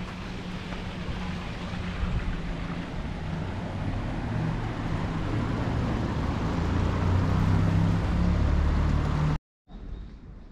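Outdoor rumble of wind on the camera microphone mixed with the low hum of motor traffic, growing louder until it cuts off abruptly about nine seconds in, followed by quieter outdoor background.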